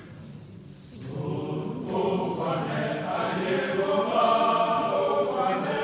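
A congregation singing together as a group chant, coming in about a second in and swelling louder.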